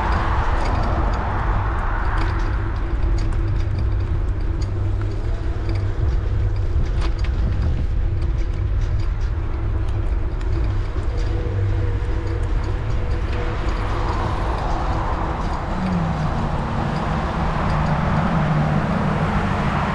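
Road traffic heard from a moving bicycle: cars swish past, one fading out in the first couple of seconds and another building from about thirteen seconds in, over a steady low wind rumble on the microphone.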